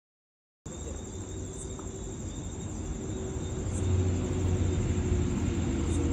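Crickets trilling in a steady high tone over a low rumble that grows louder about four seconds in.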